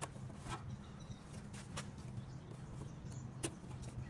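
Wheel speed sensor wire retainer clips on a brake line being popped open by hand: several faint, sharp clicks, the loudest about three and a half seconds in, over a low steady hum.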